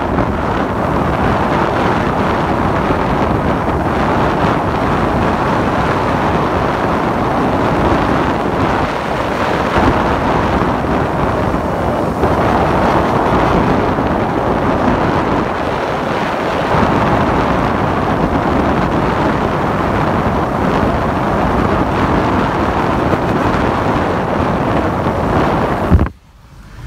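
Steady wind rush over the microphone mixed with engine and road noise from a moving motorcycle. The sound drops away abruptly near the end.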